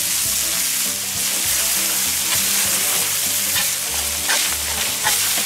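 Burger patties of mixed minced meat sizzling steadily on a hot steel fire-plate griddle. Near the end a metal burger turner is slid under a patty.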